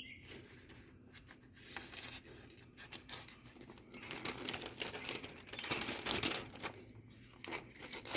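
Sheet of paper being sliced with a freshly sharpened hatchet edge: several faint papery hissing and rustling cuts, the paper test of a keen edge.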